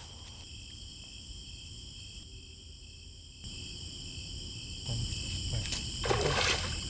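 Night insects, crickets, calling steadily in a chorus of several continuous high-pitched tones. A short noise and a few faint clicks come about six seconds in.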